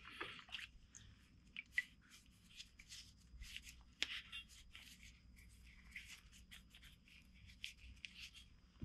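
Faint rustling and small scattered clicks of nitrile-gloved hands handling and wiping wet metal parts pulled from a plastic tub of rust-remover solution.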